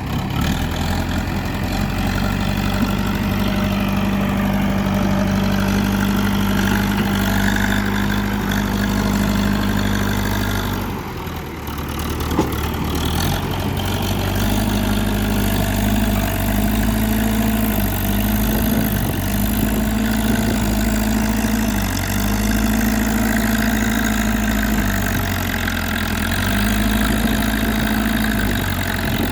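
JCB 3DX backhoe loader's diesel engine running as the machine works, its pitch stepping up and down every second or two as the load changes. The engine drops briefly about eleven seconds in, with a sharp click soon after.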